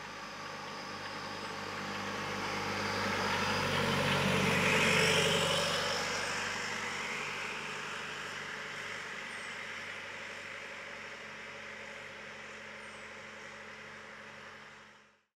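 Stage 3 tuned 2004 Audi A4 B6 Avant's 1.9 TDI four-cylinder diesel, with a bigger turbo and a custom 3-inch turbo-back exhaust, driving past. The sound grows as the car approaches, is loudest about five seconds in as it passes, then fades slowly as it drives away, and cuts off suddenly at the very end.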